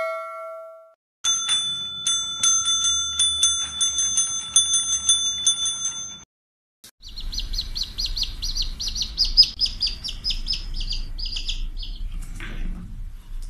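A dog slapping a countertop service bell over and over, with rapid dings about three a second for about five seconds. After a short pause, a fast run of high squeaking chirps follows for about five seconds.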